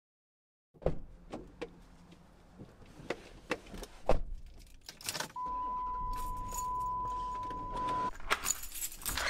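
Keys jangling and a car door being opened and slammed shut as someone gets into the driver's seat, the slam the loudest knock about four seconds in. A steady electronic warning tone sounds from the car for about three seconds after that, followed by more key rattling.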